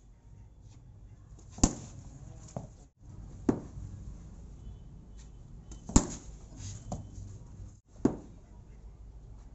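Cricket bat hitting hand-fed practice balls: four sharp cracks about two seconds apart, some followed by a fainter knock.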